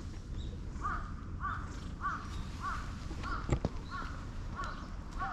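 A crow cawing in a run of about eight calls, roughly one every half second, starting about a second in. A single sharp knock sounds about three and a half seconds in.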